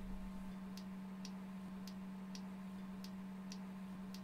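Faint, regular ticking, about two ticks a second, over a steady low hum.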